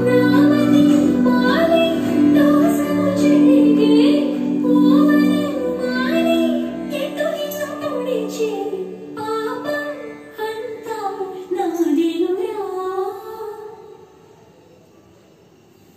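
A song with a high singing voice over instrumental backing. It stops about two seconds before the end, leaving faint room noise.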